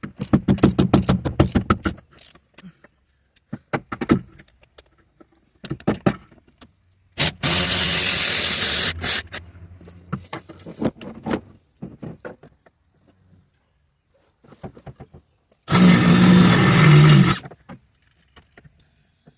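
A socket ratchet clicking rapidly for about two seconds, then two loud, steady bursts of a power tool, about two seconds each, one midway and one near the end, with small clinks of tools and parts between.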